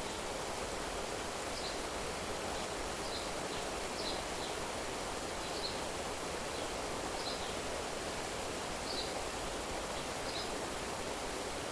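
Outdoor nature ambience: a steady even hiss, with a short high chirp from a small animal repeating about every second and a half, seven or so times.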